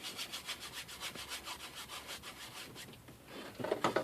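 Dry bristle brush scrubbing oil paint onto a stretched canvas in quick, even back-and-forth strokes, several a second, which stop about three seconds in. A short louder scuff follows near the end.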